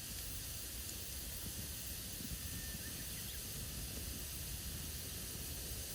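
Campfire burning with a steady hiss, a low rumble underneath.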